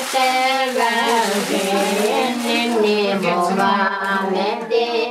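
Voices singing a slow melody with long held, wavering notes, sung without a break.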